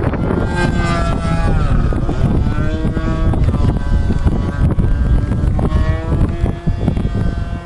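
Engine of a radio-controlled model aircraft in flight, its whine rising and falling in pitch as it passes and changes throttle, over strong wind buffeting the microphone.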